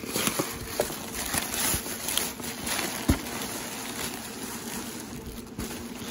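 Plastic bag rustling and crinkling as it is handled and pulled out of a cardboard box, with a dull thump about three seconds in.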